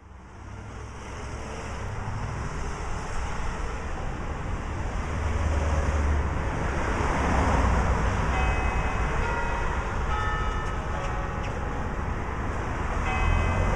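Street traffic noise, then from about eight seconds in the clock tower's bells begin to chime the ten o'clock hour, a series of clear ringing notes each lasting about a second.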